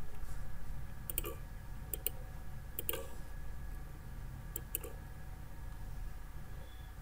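Computer mouse clicking four times, each click a quick pair of ticks, over a steady low hum.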